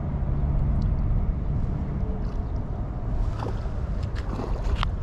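Wind buffeting the microphone in a steady low rumble, with a few brief sharp sounds about three to five seconds in.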